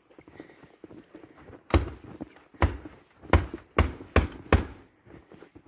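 Six dull knocks in an irregular run, starting about a second and a half in and ending near the end, each a sharp impact with a heavy low thud.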